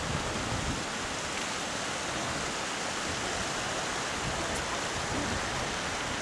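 Steady rushing hiss of wind on the microphone while riding down on a chairlift, with a few low buffets in the first second.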